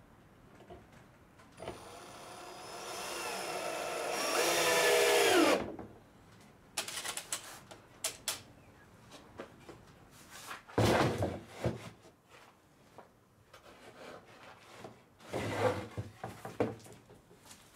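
Cordless drill-driver driving a screw into a pine batten for about four seconds, its motor whine getting louder and higher before stopping. Then wooden boards knock and clatter as they are handled, with the heaviest knock about eleven seconds in.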